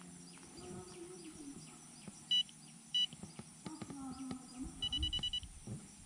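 TBS Tango 2 radio controller beeping: a short high beep about two seconds in, another about three seconds in, then a quick run of about six beeps near the five-second mark.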